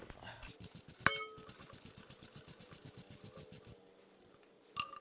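A ringing metal clink, then a ratchet clicking rapidly, about a dozen clicks a second for some two and a half seconds, as the oil drain plug is backed out of the E46 M3's oil pan. Another short metallic clink comes near the end.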